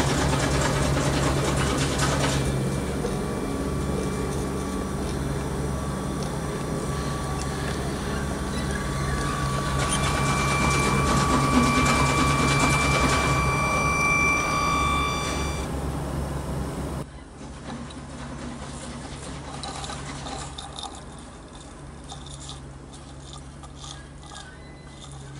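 A garden-scale model railway: a steady hiss from a Roundhouse live steam locomotive standing in steam, under the hum and high electric-motor whine of a Bachmann Large Scale Thomas model. The whine grows as Thomas pulls in alongside, then stops. About two-thirds through, the sound changes suddenly to a quieter one with light scattered clicking.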